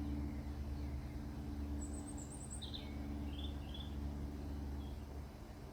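Quiet outdoor ambience: a few brief, faint bird chirps and a short high trill about two to four seconds in, over a steady low hum.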